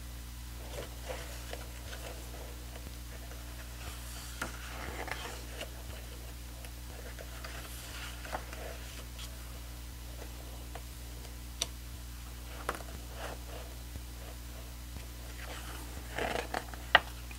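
Glossy pages of a large photobook being handled and turned by hand: soft paper rustles and slides with scattered light clicks, and a louder rustle ending in a sharp click near the end as a page flips over.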